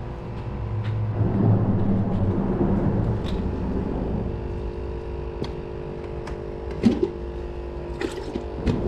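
Rumble of a passing motor vehicle, swelling about a second in and then settling into a steady hum, with a few light knocks near the end.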